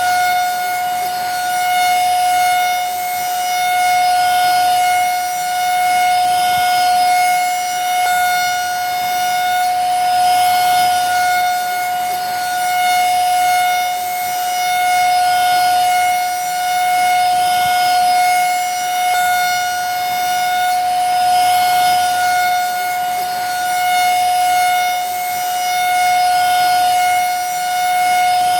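Vacuum cleaner motor running steadily: a constant high whine over a rushing hiss of air, swelling gently in loudness every couple of seconds.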